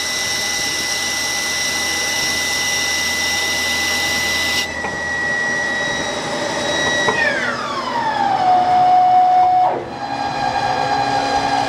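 Haas CNC lathe spindle running at speed with a steady high whine and a hiss that stops about halfway. The whine then falls in pitch as the spindle winds down to a stop, ending with a click, and a lower steady machine hum remains.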